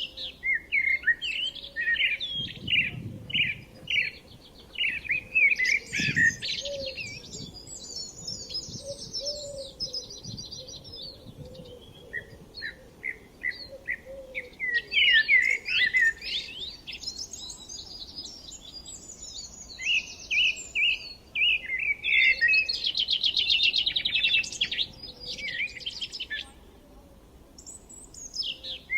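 Several songbirds singing and chirping, with repeated short chirps and fast buzzy trills in phrases of a few seconds. The song quiets briefly in the middle and again just before the end.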